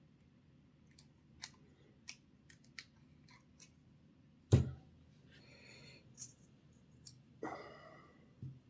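Small metal and plastic clicks and taps as parts of a model locomotive's motor are handled on a workbench. There is a louder knock about four and a half seconds in, and two short scraping rustles after it.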